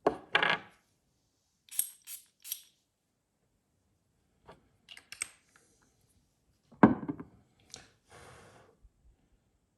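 Perfume bottle atomizer giving three quick, short sprays about two seconds in. Around the sprays are clicks and knocks from the glass bottle and its cap being handled, with a sharp knock about seven seconds in as the loudest sound.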